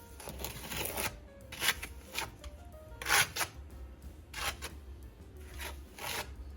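A trowel or filling knife scraping wet wall filler across a wall in about seven short, irregular strokes, with music playing faintly underneath.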